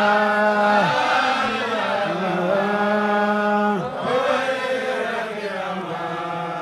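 A single voice chanting an Islamic devotional chant in long held notes that slide from one pitch to the next, pausing briefly for breath about a second in and again just past the middle.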